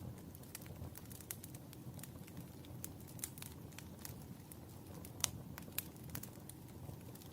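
Wood fire burning in a fireplace: a steady low rumble of the flames with irregular sharp crackles and pops, the loudest pop a little past five seconds in.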